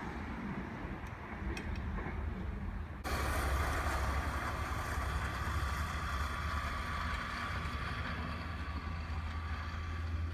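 Meitetsu electric train running, with a steady low rumble. About three seconds in the sound changes abruptly, adding a hiss and a steady high whine.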